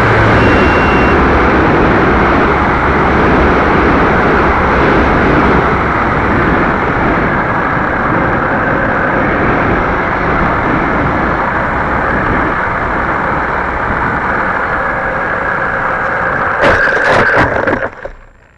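Electric radio-controlled model airplane in flight: its motor and rushing air make a steady, loud noise. Near the end there is a cluster of sharp knocks, and then the sound drops off abruptly.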